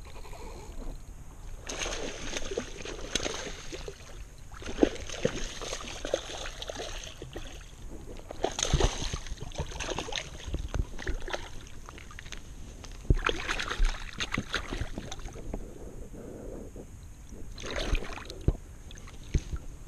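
Hooked bass splashing and thrashing in shallow water as it is reeled to the bank, in irregular bursts, with a last splash near the end as the fish is grabbed by the lip.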